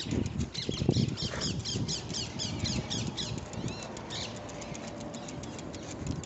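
Small birds chirping in a quick run of short, high, hooked notes, about five or six a second. A low irregular rumble sits under them in the first second and a half.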